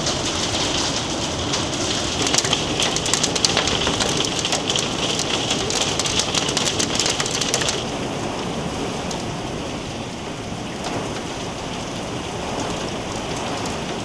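Hail and heavy rain falling, a dense noisy patter with many sharp hailstone hits. About eight seconds in it changes abruptly to a softer, steadier rain sound with only occasional hits.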